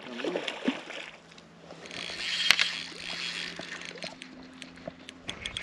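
Hooked trout splashing and thrashing at the water's surface on a fly line, loudest about halfway through, with scattered small clicks.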